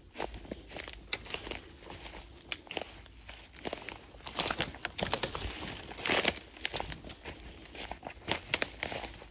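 Footsteps crunching irregularly through dry leaves, pine needles and twigs on a forest floor, with twigs crackling and brush swishing past; the densest crunching comes about halfway through and near the end.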